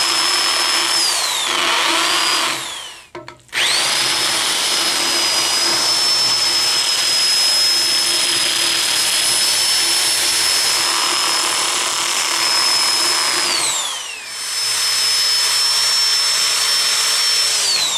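Electric drill boring a hole through a limestone step tread. The motor whines steadily as the bit grinds into the stone. It winds down and starts again several times: twice in the first few seconds, then after a long steady run of about ten seconds, and finally near the end.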